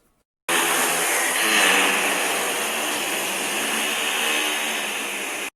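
Giraffe humming: a steady, noisy hum with a faint low drone underneath. It starts about half a second in, lasts about five seconds, and cuts off suddenly.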